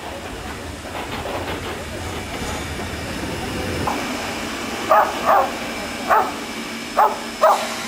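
Small Henschel steam tank locomotive running with a hiss of steam and a low rumble that builds over the first few seconds. From about five seconds in, a dog barks five times, mostly in quick pairs, louder than the train.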